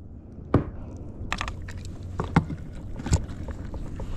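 A handful of short sharp knocks and taps on a kayak, spread a second or so apart, over a steady low rumble of wind and water.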